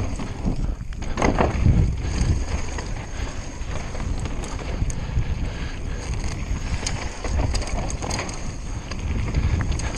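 Conway WME mountain bike rolling down a loose dirt downhill trail: a continuous rumble of tyres over dirt and stones and wind on the action camera's microphone, scattered with small clicks and rattles from the bike. There is a louder rush about a second in.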